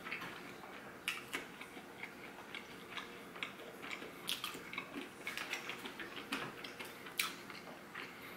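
Close-miked chewing and mouth sounds from eating, with scattered sharp, irregular clicks.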